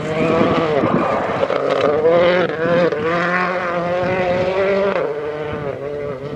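Rally car engine at high revs on a gravel special stage. Its pitch dips and climbs again a few times.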